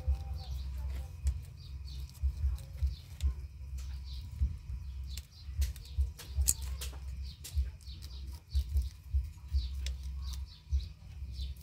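Small birds chirping in short high notes, repeating every half second or so, over scattered crisp clicks of a rabbit chewing greens and frequent low thuds.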